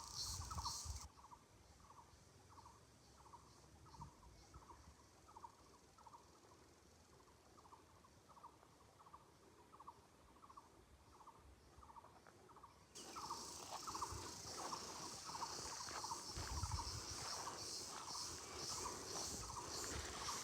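Night-time chorus of calling animals: one call repeats steadily about twice a second. Over it a high, insect-like chirring chorus stops abruptly about a second in and cuts back in abruptly about two-thirds of the way through.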